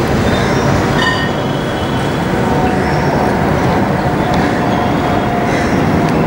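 Air India Boeing 787-8's GEnx turbofans at climb power, a loud steady jet roar with a faint whine that sinks slightly in pitch, as the airliner climbs out overhead just after takeoff.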